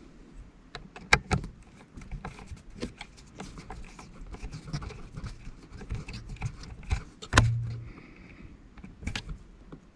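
Irregular small metallic clicks and taps of a screw being driven and small parts handled at the shifter mount. A louder knock comes about a second in, and another about seven seconds in, followed by a short low hum.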